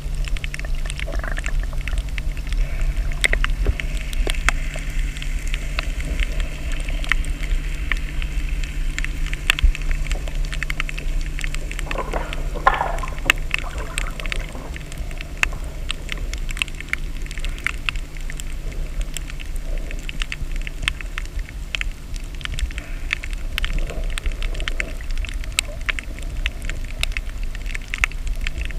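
Underwater ambience picked up by the camera: a steady low rumble and hum under a dense, continuous crackle of sharp clicks, with a short rising sound about twelve seconds in.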